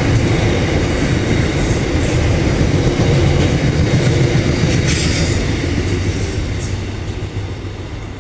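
The last wagons of a long intermodal and steel freight train rolling past: a steady rumble of wheels on rail that fades away over the last couple of seconds as the end of the train goes by.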